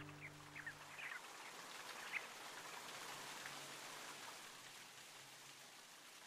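Faint, even rain-like hiss with a few short high chirps in the first two seconds, slowly fading; the last of a plucked guitar chord dies away in the first second.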